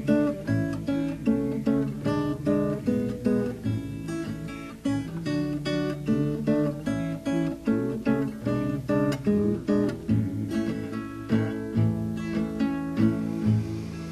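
Acoustic guitar playing a quick, continuous run of plucked notes.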